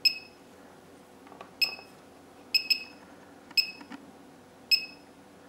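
Digital function generator's front-panel keys beeping as they are pressed: six short, high beeps at uneven intervals, two of them close together in the middle, with a few faint button clicks.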